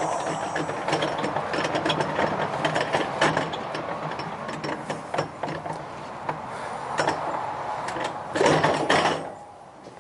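Jackson wheelbarrow with a plastic tray rattling and clicking as it is wheeled over the ground. There is a louder clatter about a second before the end.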